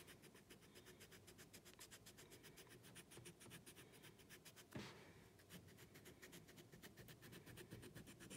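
Faint, quick scraping strokes on the cane of a bassoon reed, thinning the channels to make the reed more free blowing; one louder knock about halfway through.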